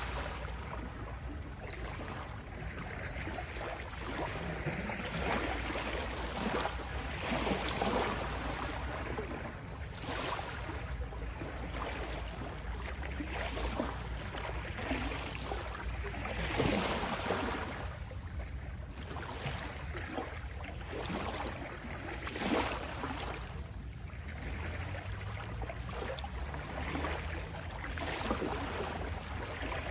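Small waves lapping and washing on a shore, swelling and fading every few seconds.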